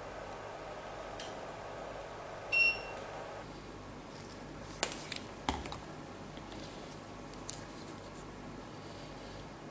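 LMB SEALmatic M blood-bag tube sealer sealing plastic tubing: a steady buzz for about three and a half seconds, with a short high beep, the loudest sound, near the end of the seal. A few light clicks follow as the sealed tubing is taken out of the sealing head and handled.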